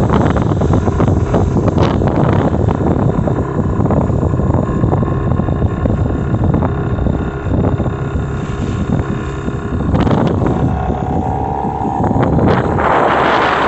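Mariner 15 HP outboard motor running steadily as the small boat moves under way, with wind buffeting the microphone. The motor sound gets louder near the end.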